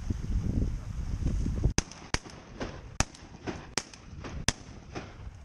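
Wind buffeting the microphone, then from a bit under two seconds in the wind drops away and a string of sharp, irregular pops follows, about five loud ones and several fainter.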